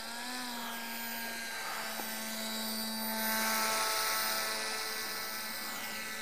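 Electric motor and propeller of a radio-controlled model paramotor whining steadily in flight, with a slightly wavering pitch. It grows louder about three seconds in as the model passes overhead, then eases off.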